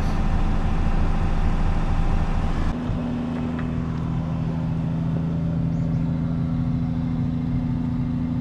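1974 Plymouth Valiant engine idling steadily, just restarted after electrical repairs. Heard first from the open driver's door, then from behind the car near the exhaust, where about three seconds in it settles into a steady, even hum.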